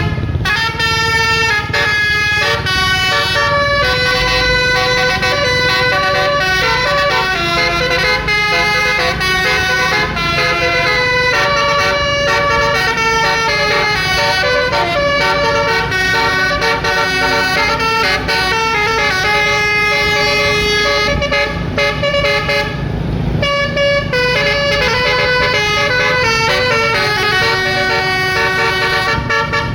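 Multi-tone 'telolet' bus horn playing a continuous melody, note after note, over a low rumble.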